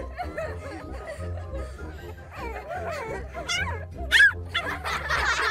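Background music with a puppy yipping and whining as it is tickled, with a sharp high cry about four seconds in.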